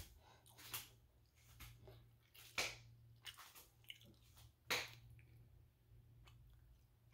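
Faint chewing and mouth sounds of someone eating orange chicken, with a few short sharp smacks or clicks, three of them louder than the rest.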